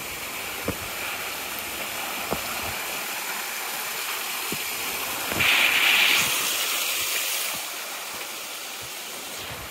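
Small waterfall splashing down rock ledges, a steady rush of water that grows louder about halfway through and then fades back, with occasional footsteps on the rocky trail.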